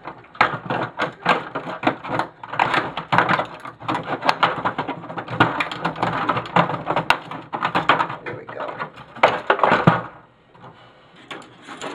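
Hard plastic and metal parts inside a printer clicking, cracking and rattling as a part is pried out by hand, with a fast irregular run of knocks that stops about ten seconds in.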